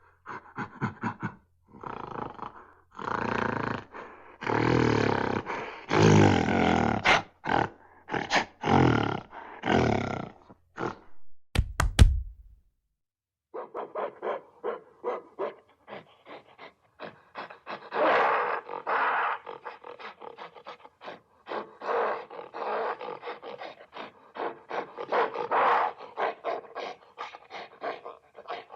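Calls of large wild animals: a run of loud, pulsed calls, a sharp click and a short pause about twelve seconds in, then a long stretch of fast, rapidly pulsing calls.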